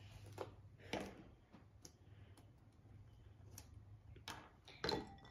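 Faint scattered clicks and taps of a small plastic doll and its clothes being handled and pulled at, with a louder cluster about four seconds in, over a low steady hum.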